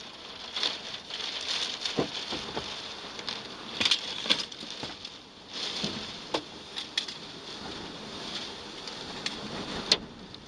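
Storm wind and rain noise in a tornado, with irregular sharp knocks and ticks scattered through it. The loudest knocks come about four seconds in and near the end.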